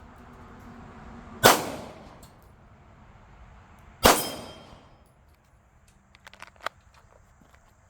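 Two shots from a Glock 19 Gen 5 9mm pistol, about two and a half seconds apart, each trailing off into a short ring. A few faint ticks follow near the end.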